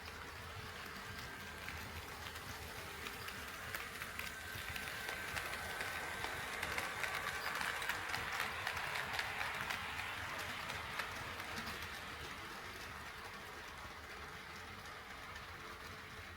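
HO scale model train running past on KATO Unitrack: motor hum and a fast clicking of wheels over the track joints. It grows louder to a peak about halfway through, then fades away.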